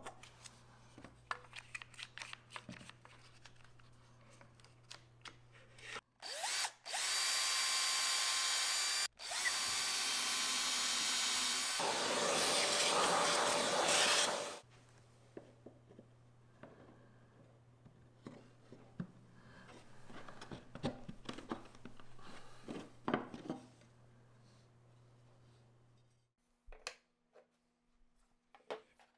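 Handheld electric power tool run twice, about three seconds and then about five seconds, a steady whine that shifts partway through the second run. Light clicks and taps of handling tools and wood before and after.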